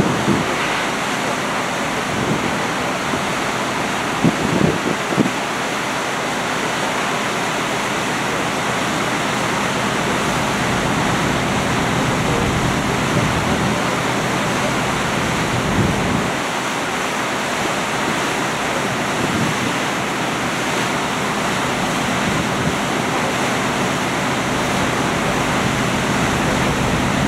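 Steady rush of wind and sea on the deck of a moving ferry, with wind buffeting the microphone in a few low thuds, a handful of seconds in and again about halfway. A faint steady low hum runs underneath.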